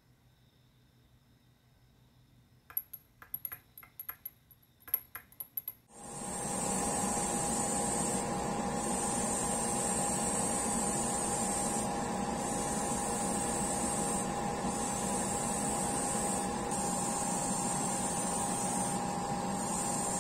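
Metal stirring rods clinking against a small glass paint jar for a few seconds, then a steady machine hum with the hiss of an airbrush spraying clear lacquer, the hiss breaking off briefly several times as the trigger is released.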